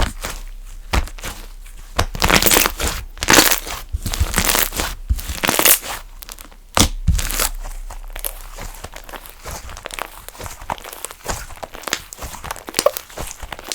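Slime being handled by hand: loud noisy bursts through the first half, then a long run of small sharp clicks.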